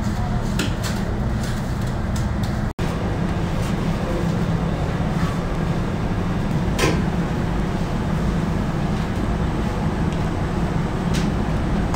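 Steady low rumble of bakery machinery, with a few light knocks and clatters, the loudest about seven seconds in. The sound cuts out for an instant about three seconds in.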